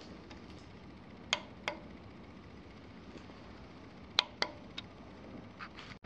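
Sharp small clicks from handling the clamp-on gooseneck LED grill light: two about a second in and two more about four seconds in, with a few fainter ticks, over faint room noise.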